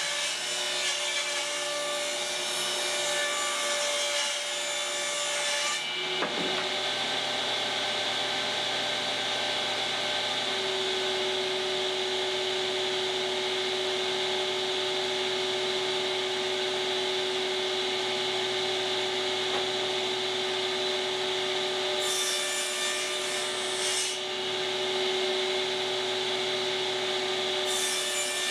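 Table saw running and cutting wood. A board is ripped along the fence until an abrupt change about six seconds in. After that the saw spins on steadily with a crosscut sled, and the blade cuts into wood for about two seconds around twenty-two seconds in and again briefly near the end.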